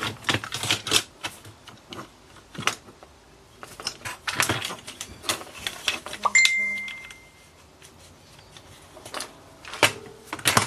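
Metal and plastic parts of a DVD home-theater receiver clattering and clicking as it is taken apart by hand, in irregular knocks. One part gives a brief metallic ring about six seconds in.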